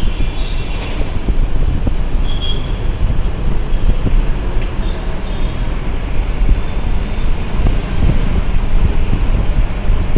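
Road traffic noise: a steady low rumble of vehicles on the road, with brief high squeaks near the start and about two and a half seconds in.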